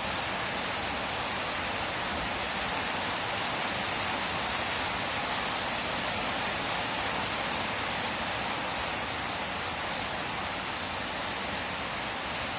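Heavy rain of a tropical rainstorm, falling in a steady, even hiss.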